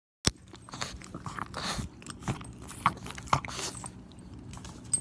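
Pug licking right at the microphone: a string of irregular wet mouth smacks and licks, after a sharp click just after the start.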